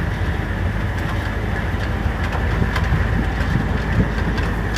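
Motorcycle engine running steadily while riding over a rough, stony dirt track, with a constant rushing noise and small scattered knocks and rattles from the stones.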